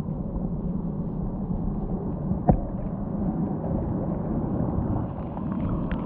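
Muffled, steady low rumble of flowing stream water heard by a camera held underwater, with a single sharp knock about two and a half seconds in.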